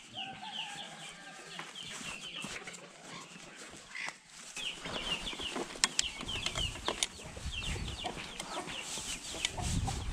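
Chickens clucking, with rapid short high chirps repeating throughout. Sharp clicks and a low rumble join in about halfway.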